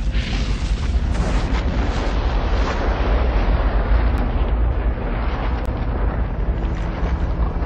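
Continuous loud rumbling and rushing noise: the animated film's sound effects for a magical upheaval, with a deep rumble underneath.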